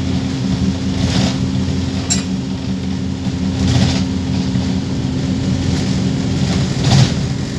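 Wright StreetLite Max bus's DAF diesel engine running with a steady low drone, heard from inside the saloon as the bus drives along, with a few brief rattles from the bodywork, the sharpest a click about two seconds in.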